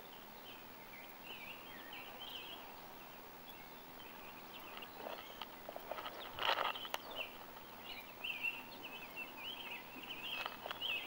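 Small songbirds chirping and warbling on and off throughout, with one brief louder knock or rustle about six and a half seconds in.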